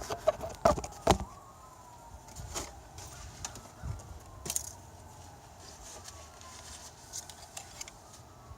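A few sharp clicks and knocks in the first second or so as the engine dipstick is pulled and handled, then a faint siren wailing in the distance, its pitch falling again and again.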